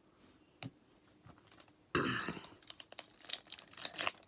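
The plastic wrapper of a 2020 Topps Holiday baseball card pack being torn open and crinkled by hand. It starts suddenly about two seconds in as a series of sharp crackles, after a quiet stretch broken by a single click.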